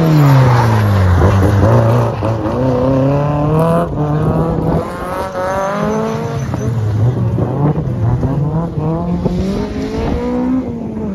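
Rally car engines at full throttle through a corner, one car after another. The yellow Peugeot 206's engine note falls sharply as it passes close by. The revs then climb and drop again and again through gear changes as a second car, a white hatchback, comes through and accelerates away.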